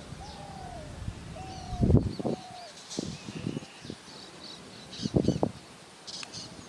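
Birds calling: a few short arched whistled notes in the first two and a half seconds, with fainter high chirping throughout. Low thumps come about two seconds in and again just after five seconds.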